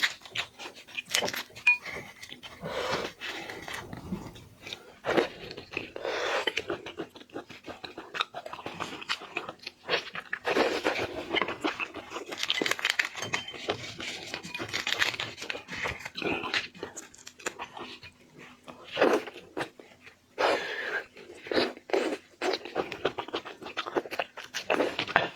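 Shrimp being eaten close to the microphone: repeated crunching bites and chewing, with many short sharp clicks and crackles.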